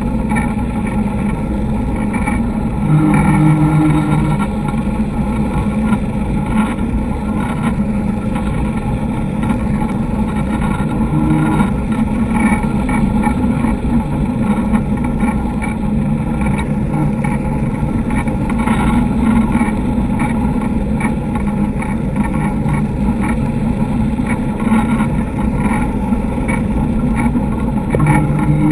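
Sportfishing boat's engines running with a steady low drone at trolling speed, swelling briefly a few times.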